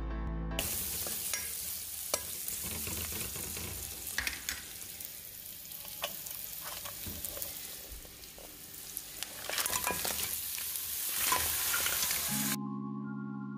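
Food frying and sizzling in a hot pan, with scattered clicks and scrapes of stirring. It starts about half a second in, after a short stretch of music, and cuts off suddenly about a second before the end, when light mallet-percussion music comes in.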